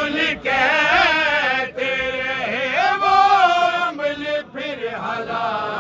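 A man chanting a manqabat, a devotional poem in praise of Imam Hussain, in a wavering, ornamented voice. The sung phrases are broken by short pauses for breath.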